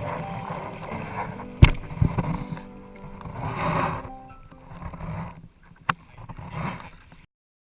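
Water surging and sloshing around an underwater camera, swelling and fading with the waves, with two sharp knocks. The sound cuts off abruptly near the end.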